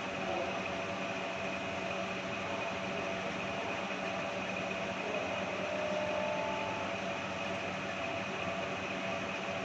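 Steady mechanical hum over an even wash of noise, unchanging throughout.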